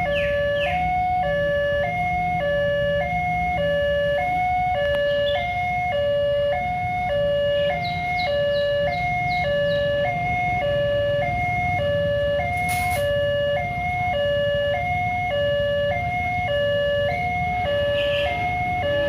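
Railway level-crossing warning alarm of the 'Alarm Indonesia' type, sounding a steady two-tone high-low pattern that switches pitch about twice a second, over a constant low rumble.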